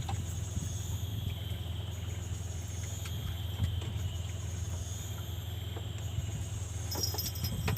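Crickets and other insects chirping steadily over a constant low hum; near the end a faster pulsing chirp starts up.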